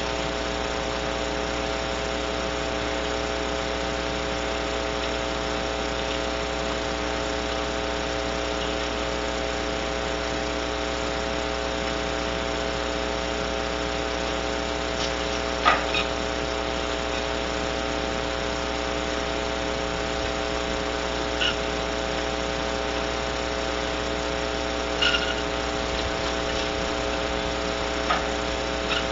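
Steady electrical hum with several stacked pitches from the barn owl nest-box camera's audio feed, broken by a few brief knocks or scratches about halfway through and several more in the last third.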